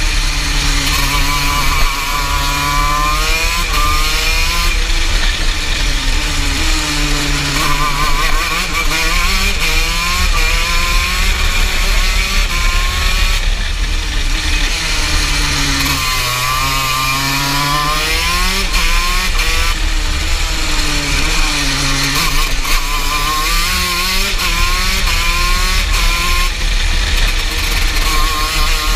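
TM KZ10B 125 cc two-stroke shifter kart engine heard onboard at racing speed, its revs climbing and falling again and again as it accelerates out of corners and slows for the next.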